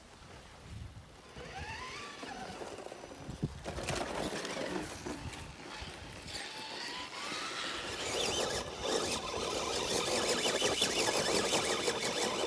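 Scale RC rock crawler's HobbyWing XeRun Axe brushless motor whining, its pitch rising and falling as the throttle is worked. From about four seconds in there is growing scraping and crunching as the tyres and chassis grind over rock and loose dirt.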